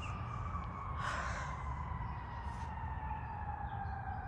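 A distant siren wailing, its pitch falling slowly and steadily, over a low outdoor rumble, with a brief rustle about a second in.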